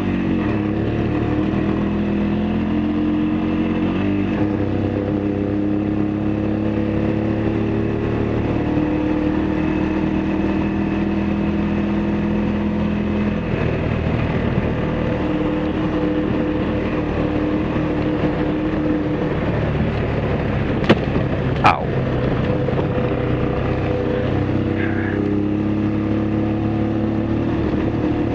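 ATV engine running at a steady trail-cruising pace, its note rising and falling a little with the throttle, over tyre and wind noise. Two sharp clicks come close together about three-quarters of the way through.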